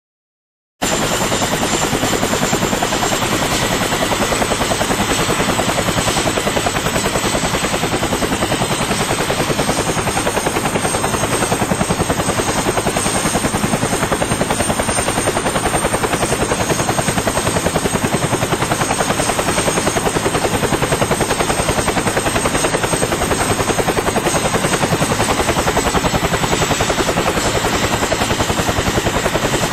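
Helicopter in steady flight: a fast, even rotor-blade chop with a thin, high turbine whine above it. It starts abruptly about a second in and holds at a constant level.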